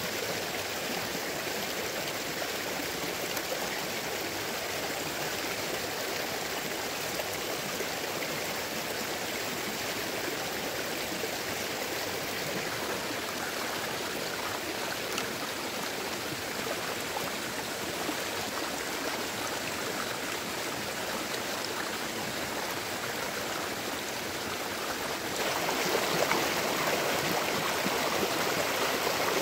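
Shallow rocky stream running steadily over stones, a constant rushing and trickling of water. Near the end the water becomes louder and brighter.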